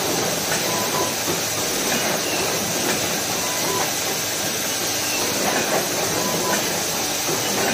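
Automatic self-adhesive hook assembly machine running: a steady hiss and rattle with light clicks now and then.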